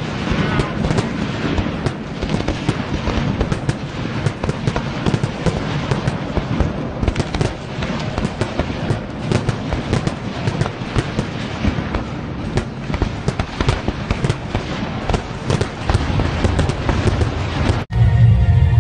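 Fireworks going off: a dense, continuous run of bangs and crackling. Near the end it cuts off abruptly, then a louder, deeper burst begins.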